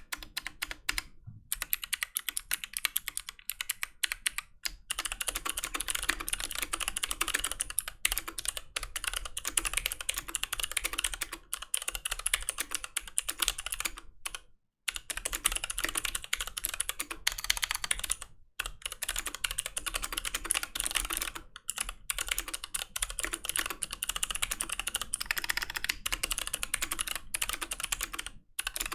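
Fox Orange80 custom mechanical keyboard being typed on fast: a dense run of key clacks, broken by a few short pauses, the clearest about halfway through.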